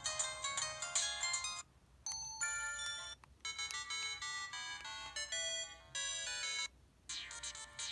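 Built-in ringtone melodies of an LG LB6300 mobile phone playing through its small speaker: short electronic tunes with no bass, broken by brief pauses about one and a half, three and seven seconds in.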